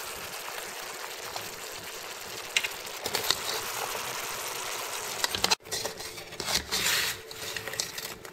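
Sugar syrup bubbling and sizzling in a metal wok as fried taro sticks are stirred through it with a metal spatula, with a few sharp taps of the spatula on the wok. About five and a half seconds in the sizzle cuts off and gives way to irregular scraping and clattering as the taro, now coated in drying sugar glaze, is tossed in the wok.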